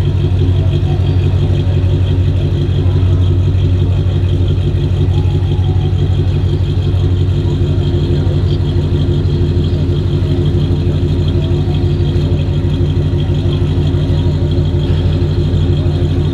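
1957 Chevrolet Bel Air's engine running steadily at low speed as the car creeps along, its exhaust giving a loud, even, pulsing note heard from just behind the tailpipes.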